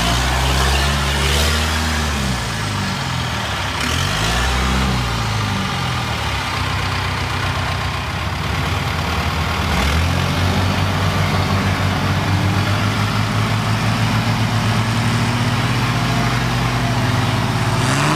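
Jeep engines revving in deep mud, pitch rising and falling twice in the first five seconds as the stuck Jeep spins its tyres. From about ten seconds in, a steady, fast-pulsing engine drone under load while the stuck Jeep is pulled on a recovery strap.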